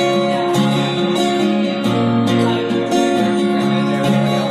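Acoustic guitar being strummed, its chords ringing between a few strokes.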